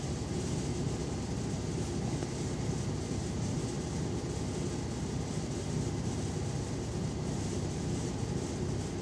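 Steady low rumbling background noise with no drum strikes or other distinct events.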